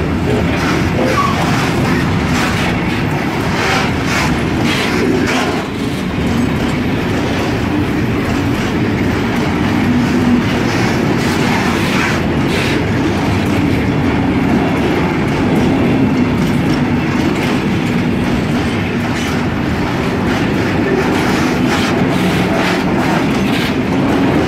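Freight wagons rolling slowly past, their wheels clicking over the rail joints with a steady rumble.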